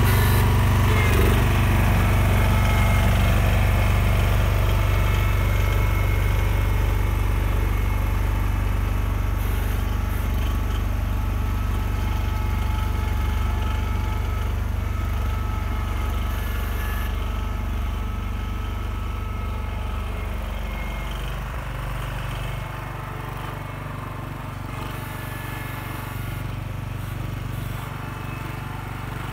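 John Deere 140 garden tractor's single-cylinder Kohler engine running steadily under load while pushing snow with its front blade. It grows steadily fainter as the tractor moves away, and its note drops a little about twenty seconds in.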